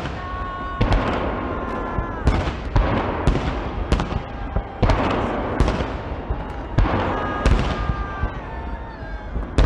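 Aerial firework shells bursting in quick succession: about ten loud bangs, each followed by crackling as the stars spread, with thin whistling tones now and then.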